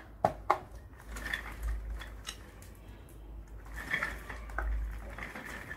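Hard plastic parts of a baby walker knocking and scraping as the detachable music panel is pushed and fitted onto the plastic tray: two sharp clicks near the start, then rubbing and light knocks.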